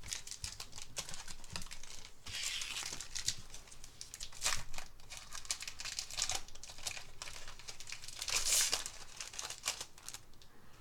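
Foil booster-pack wrappers crinkling and tearing open, with small clicks and rustles from trading cards being handled. The rustling comes in bursts, the loudest near the end.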